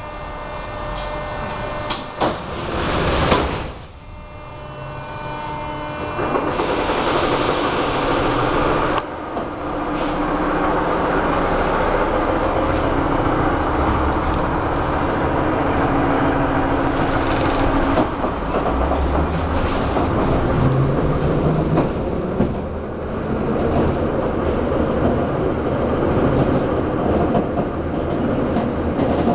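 Moscow metro 81-717/714 train closing its doors with two sharp bangs about two and three seconds in, then pulling away. A loud hiss follows for a couple of seconds, and then the traction motors whine and the wheels clatter on the rails as the train settles into a steady run.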